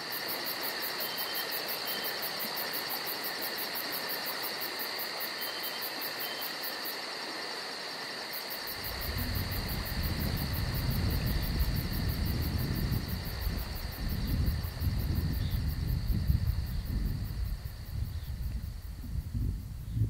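Crickets chirping in a steady chorus with a fast, even pulse. About nine seconds in, wind starts buffeting the microphone in irregular low gusts, and the insect sound fades under it.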